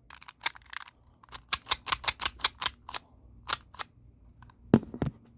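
Meiwa Alexe mechanical calculator's mechanism clicking as it is worked by hand. A quick run of about a dozen crisp clicks, a few scattered ones, then two heavier clacks near the end.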